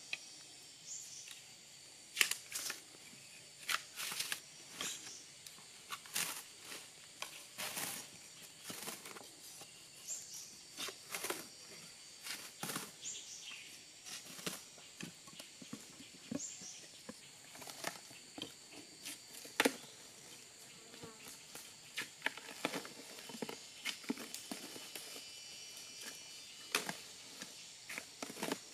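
Irregular sharp knocks, snaps and rustles of wood and brush being handled and worked by hand, over a faint steady high drone of insects.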